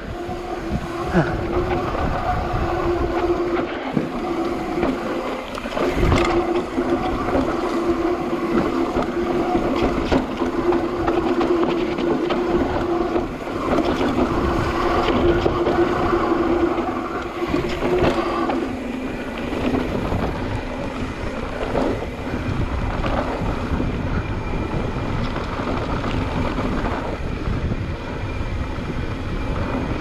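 Trek Slash mountain bike riding down a dirt trail: wind rushing over the microphone, tyres rolling on dirt, and sharp knocks from the bike over bumps. A steady hum runs for about the first eighteen seconds, then stops.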